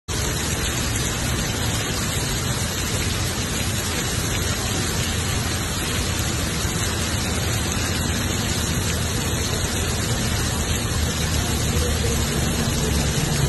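Heavy rain pouring down on pavement and road, a steady, even hiss throughout.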